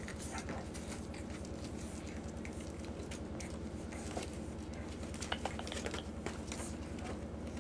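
Five-week-old puggle puppies scuffling and pawing on a shaggy rug: soft irregular rustles and small scratchy clicks, over a steady low hum.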